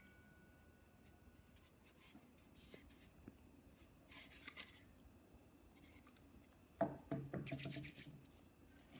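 Faint sticky rubbing and squishing of hands working freshly activated glue slime, mostly very quiet, with a short cluster of louder squelchy handling noises near the end.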